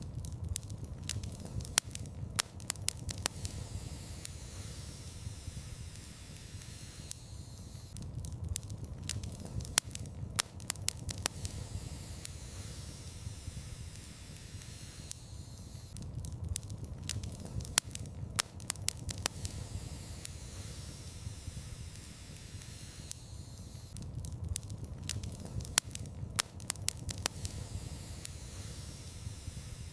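Wood fire in a fireplace crackling, with sharp pops and snaps over a low steady rumble of flames. The same few seconds of crackling repeat about every eight seconds.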